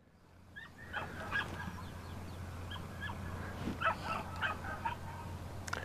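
Faint, short, high whimpers from a young field-bred English Cocker Spaniel puppy, coming in scattered bursts through the clip.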